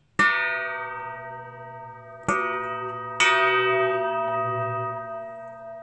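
A round metal stand base struck three times, ringing like a bell after each strike with a long, slowly fading tone of several pitches. The first strike comes right at the start, and the other two come close together about two and three seconds in.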